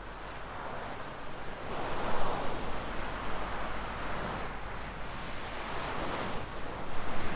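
Fluffy material being rubbed over the ears of a 3Dio binaural microphone, making slow, swelling whooshes. They are loudest about two seconds in and again near the end.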